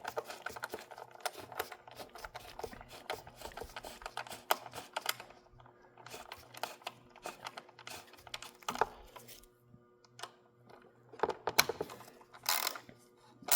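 Socket ratchet with an extension and 8 mm socket clicking as a bolt is run in: rapid ratchet clicks for about five seconds, then a few scattered clicks and knocks near the end.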